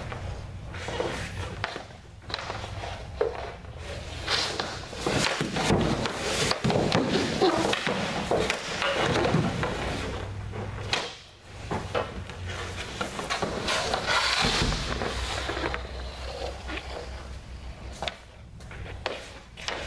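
Hockey goaltending drill on a synthetic ice surface: skates and goalie pads scraping and sliding over the plastic, with scattered sharp knocks of sticks hitting pucks and pucks striking the goalie's gear.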